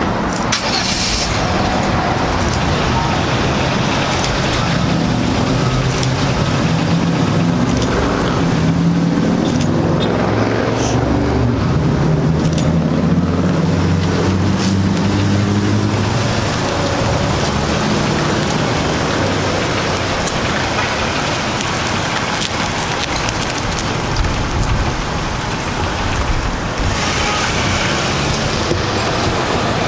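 Street traffic: vehicles running and passing, with a vehicle engine's low hum loudest in the first half.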